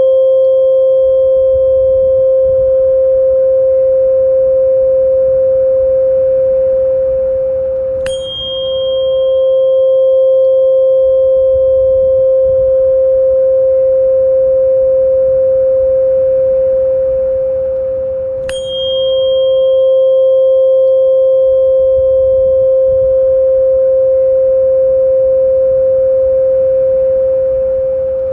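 Tuning fork struck twice, about ten seconds apart: each strike is a sharp click followed by a steady, sustained ringing tone with a fainter higher overtone, fading slightly just before the next strike. A soft low rumble sits underneath.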